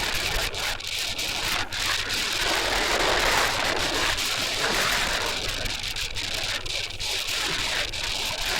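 Strong wind buffeting the microphone: a loud, steady rushing noise that swells about three seconds in and then eases, with a faint low hum beneath.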